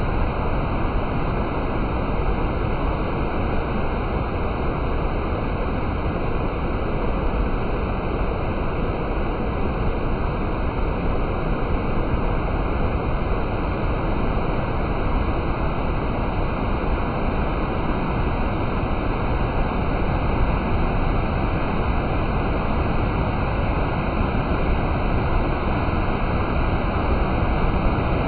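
A mountain stream rushing over boulders: a steady, unbroken roar of water with no pauses or gusts.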